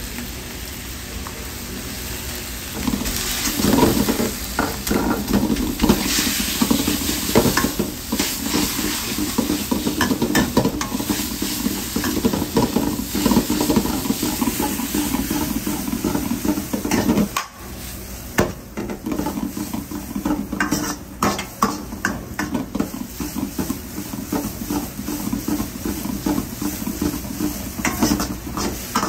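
Udon noodles with egg and onion sizzling in a carbon-steel wok while a stainless steel ladle stirs and scrapes them, with frequent quick clinks of the ladle against the wok. It gets louder about three seconds in and drops out briefly around the middle.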